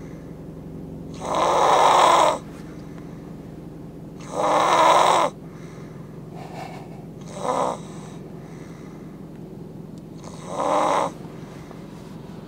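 A man snoring loudly in sleep, four snores about three seconds apart, the third one short, through a partly blocked nose.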